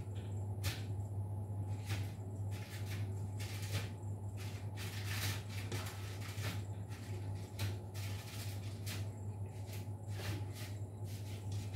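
Small irregular taps, clicks and rustles of dough being handled and shaped by hand on a kitchen counter, over a steady low hum.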